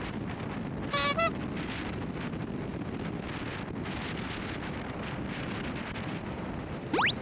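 Wind rushing over the microphone of a Honda GB350 motorcycle riding at road speed, a steady noisy rush. About a second in, two short pitched tones sound, the second slightly higher, and near the end a very fast rising sweep, both louder than the wind.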